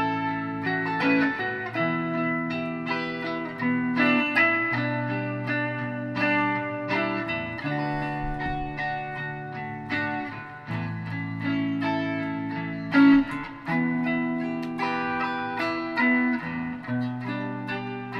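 Stratocaster-style electric guitar played in a run of picked notes and chords, low notes ringing for a second or two at a time under quicker higher notes. One short, louder accent about thirteen seconds in.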